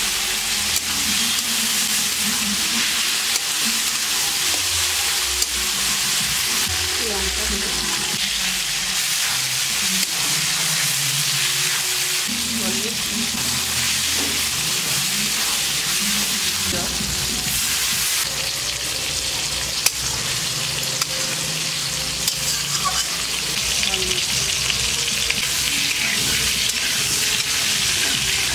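Onions, tomatoes and spices sizzling in hot oil in an aluminium kadai, stirred with a spatula that scrapes along the pan. A steady hiss runs throughout, broken by a few sharp clicks of the spatula against the metal.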